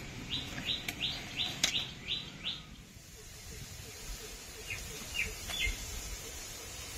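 A bird chirping: a quick run of about seven short, high chirps at roughly three a second, then three more a few seconds later. A sharp click sounds about a second and a half in, during the first run.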